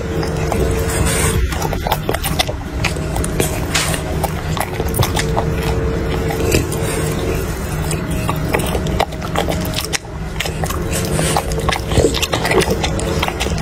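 French bulldog chewing and smacking its lips on hand-fed meat close to the microphone: many short wet clicks, over a steady low hum.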